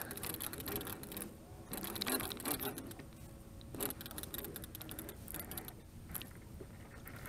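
Fishing reel's drag clicking in irregular runs as a striped bass takes line off the reel.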